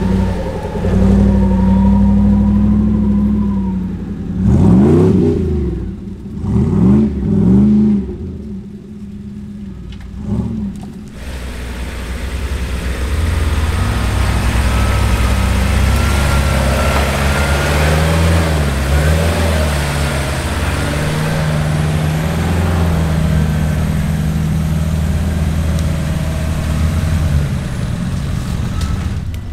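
Off-road 4x4 engine revving hard three or four times in quick rises and falls, then running steadily under load as the vehicle drives on.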